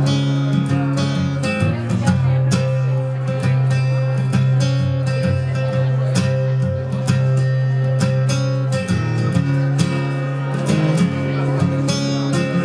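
Steel-string acoustic guitar strummed in a steady rhythm, its chords ringing.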